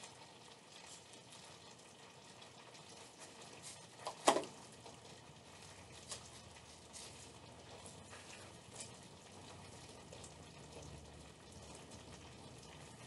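Faint steady hiss with a few light clicks of a metal fork against a small plate, the sharpest about four seconds in.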